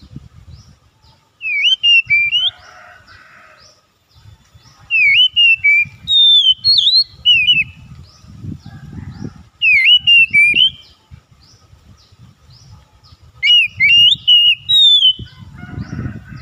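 Oriental magpie-robin singing four loud phrases of clear whistled notes that sweep up and down, with a faint, regular high ticking behind.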